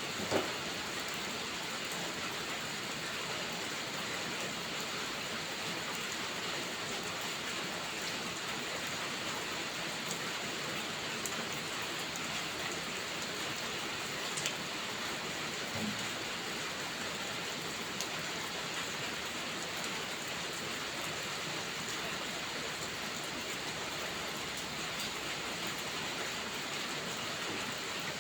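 Steady rain falling, an even hiss, with a few sharp taps scattered through it.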